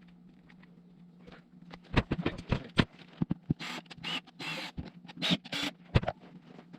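Hands-on work on a plastic console: a run of sharp clicks and knocks starting about two seconds in, then several short scraping bursts, over a faint steady hum.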